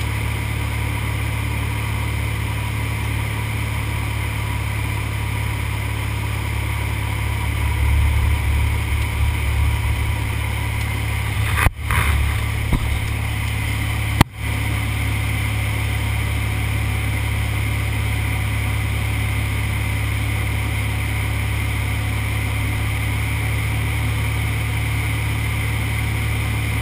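Steady drone of a light aircraft's engine and propeller heard from inside the cabin in flight. A couple of brief knocks with the sound momentarily cutting out come near the middle.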